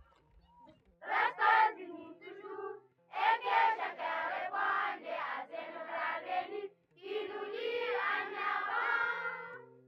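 Group of schoolchildren singing together in three phrases with short breaks between them.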